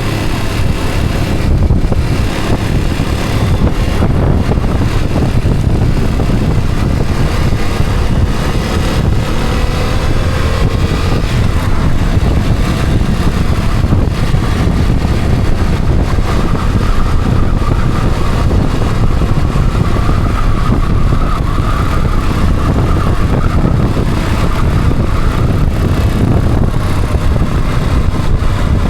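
Steady engine and road noise of a moving vehicle, with heavy low rumble throughout.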